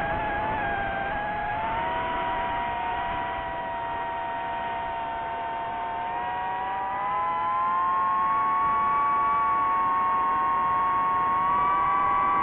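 FPV quadcopter motors whining: several close tones that drift together, stepping up in pitch and getting louder about halfway through as the throttle is raised.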